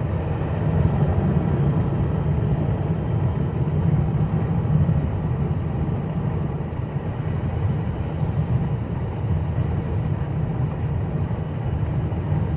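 Steady low rumble of a truck's engine and tyres on the road, heard from inside the cab while cruising on the highway.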